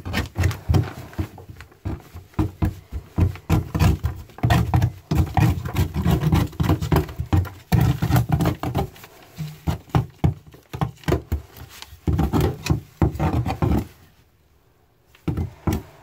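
Handheld power cutter cutting out the old core of a fibreglass boat deck, biting in rough, uneven bursts, with a short break near the end.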